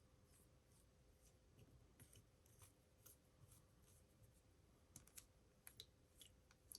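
Near silence: room tone with a faint steady hum and scattered faint small clicks of handling, a few more of them near the end.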